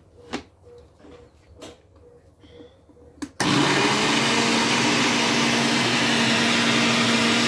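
Countertop blender switched on about three seconds in and running steadily at one speed, blending a cream mixture, with a steady low hum under its whir. Before it starts, a few light plastic clicks and knocks as the lid is fitted and the knob turned.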